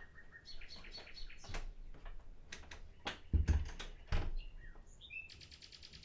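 Common nightingale singing: a held whistle, high notes and sharp clicking notes, then a fast, even trill about five seconds in. Two low thumps a little past the middle are the loudest sounds.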